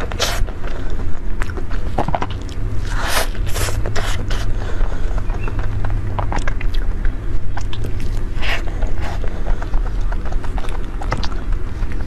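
Close-up mouth sounds of eating soft layered cream cake: wet chewing and lip smacks as scattered clicks, with a few louder smacks, over a steady low hum.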